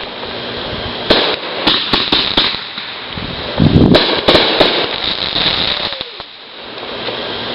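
Fireworks going off: a run of sharp bangs about a second in, then a louder cluster of booming bursts and cracks around four seconds in.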